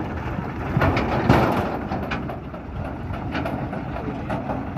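Tractor engine running with a low rumble, with scattered knocks and clanks, the loudest just over a second in.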